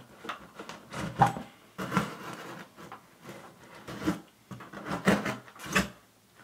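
A knife cutting through corrugated cardboard: a series of irregular scraping, crunching strokes as a hole is cut into the side of a box.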